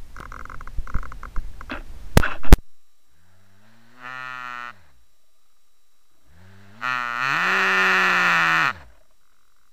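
Crackling and clicks for the first couple of seconds, ending in a sharp loud click; then a cow moos twice, a short low call and a longer, louder one, each rising and then falling in pitch.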